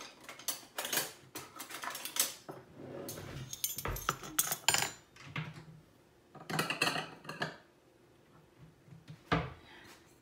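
Metal kitchen utensils clattering and clinking against each other and against dishes, in three separate bursts of clinks, then a single knock near the end.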